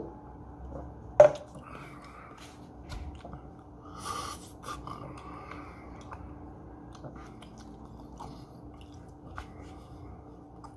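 Close-up chewing of food, with light fork clicks and one sharp knock about a second in.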